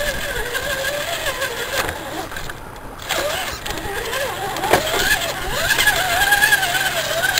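Electric motor and gear drive of a scale RC Chevy Blazer crawler whining, the pitch wavering up and down with the throttle as it works through mud. A sharp knock about four and a half seconds in.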